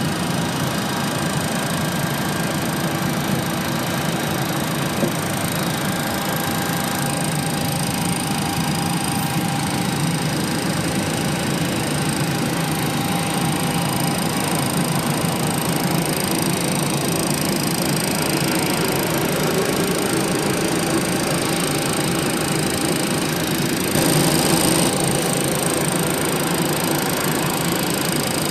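Steady ventilation and air-conditioning hum in a parked Boeing 737-800 flight deck with its engines shut down, carrying several faint steady tones. It swells briefly about 24 seconds in.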